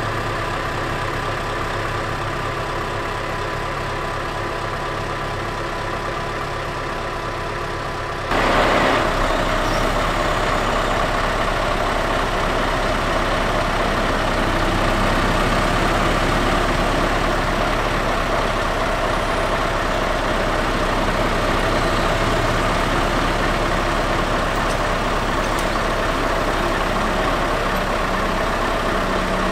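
Scania R650's V8 diesel engine running steadily at idle. About eight seconds in, the sound turns abruptly louder and fuller and then holds steady while the truck's loader crane works.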